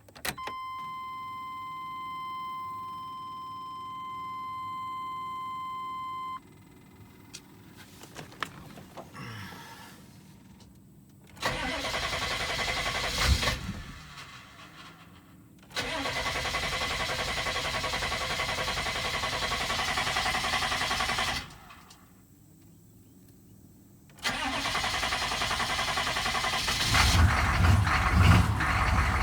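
A 6.5 Detroit Diesel V8 being cranked over in three long tries and slow to fire, catching near the end of the third; the hard starting comes from a failing injection pump. Before the cranking, a steady electronic warning tone sounds for about six seconds.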